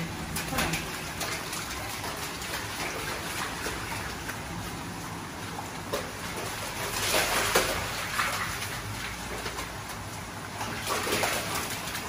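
Shallow stream water running through a concrete culvert tunnel, with splashing from wading through it; the splashing grows louder about seven seconds in and again near the end.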